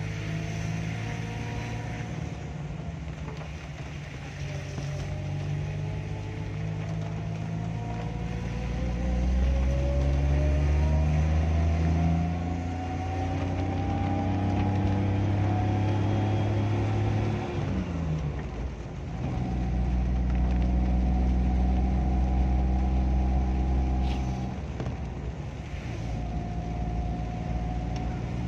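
Vehicle engine heard from inside the cabin, its pitch climbing slowly for several seconds, then falling sharply about two-thirds of the way in and running steadily again after.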